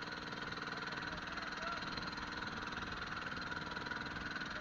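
Fishing boat's engine running steadily, an even, unbroken drone.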